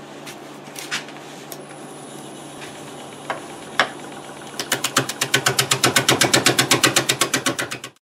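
Laguna Revo 1836 wood lathe humming as it spins an out-of-round black locust bowl blank, with a few scattered clicks. Just past halfway a bowl gouge starts cutting and strikes the blank's high spots once per revolution, making a loud, rapid, even tapping of about ten strikes a second: an interrupted cut on a blank not yet trued round. The tapping cuts off abruptly at the end.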